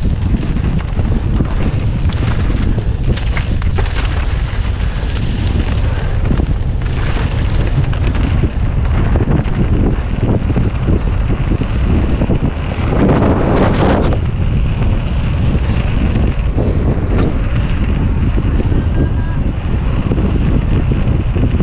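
Wind rushing over a camera microphone on a mountain bike descending at race speed, with steady low rumble and scattered clatter from the rough trail. About thirteen seconds in, a louder rushing hiss lasts about a second.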